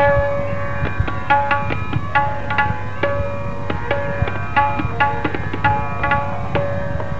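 Tabla solo: quick, crisp strokes on the tabla over a sarangi playing the lehra, a short bowed melodic phrase repeated over and over to keep the cycle.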